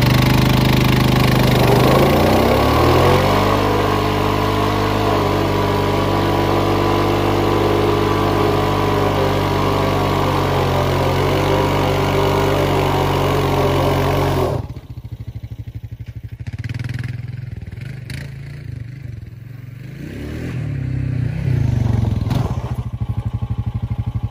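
Honda Rancher TRX420 ATV's single-cylinder engine revving up and held at high revs in a burnout, rear tyres spinning on pavement with a loud hiss. About fourteen seconds in, the revs cut suddenly to idle, with one more short rev near the end.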